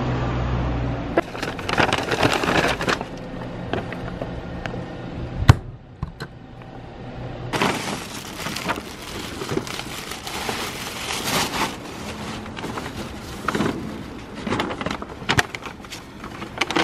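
Paper grocery bag rustling and crinkling in irregular spells as groceries are lifted out and moved into a cloth shopping bag. A low steady hum fades out about a second in, and there is one sharp knock about five and a half seconds in.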